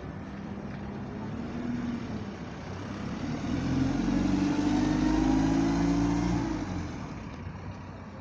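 A bus's engine as it passes by, getting louder to a peak about four to six seconds in and then fading away.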